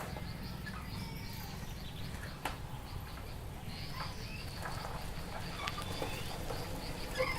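Village outdoor ambience: scattered bird chirps and calls over a steady low rumble, with one sharp click about two and a half seconds in.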